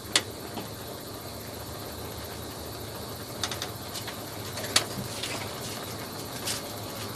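Steady low rush of a gas stove burner heating a pan of noodle soup, with a few faint clicks.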